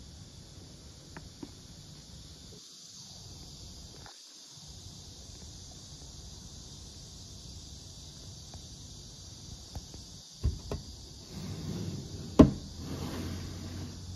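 Quiet room tone with a steady hiss and a few faint ticks. About ten seconds in come handling noises: two low thumps, rustling, and one sharp click, the loudest sound, followed by more rustling.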